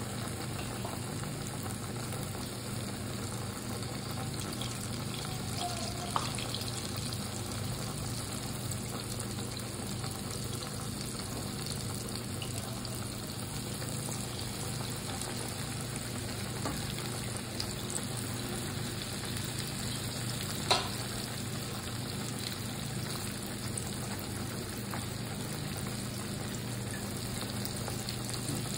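Battered pork belly deep frying in hot oil in a pan, a steady sizzle over a low hum. A sharp click about six seconds in and a louder one about two-thirds of the way through.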